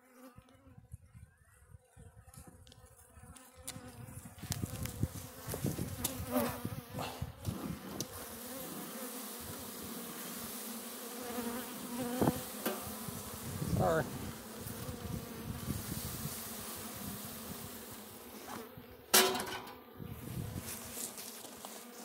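Russian honey bees buzzing in a steady hum over an opened hive, with a hiss that sets in a few seconds in and a few sharp knocks, the loudest near the end.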